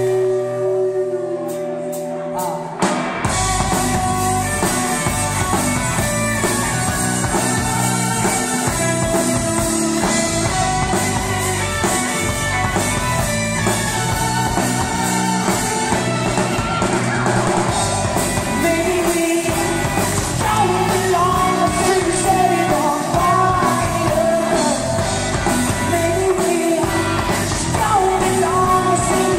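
Live rock band playing: electric guitars and drum kit with a male lead singer. About three seconds in, the drums and low end come in after a thinner guitar-only passage.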